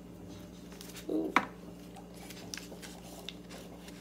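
Quiet handling of paper cut-outs: faint rustles and taps as paper pieces are placed and pressed down, with a brief murmur and a sharp click about a second in. A steady low hum runs underneath.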